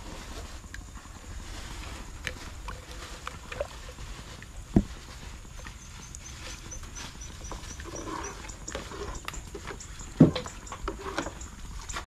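Metal spoon scraping and tapping as chili satay is spooned out of a jar into a pot of broth, with two sharp knocks of metal on the jar or pot rim, about five and ten seconds in.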